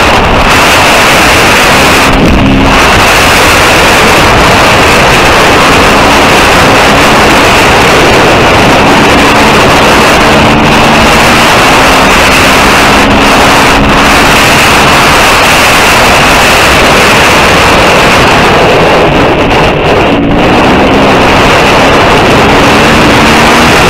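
KTM 350 EXC-F single-cylinder four-stroke enduro engine running hard under way, its note rising and falling as the throttle is worked, mixed with heavy wind buffeting on the helmet-mounted microphone. Loud throughout, with a short easing of the rush near the end.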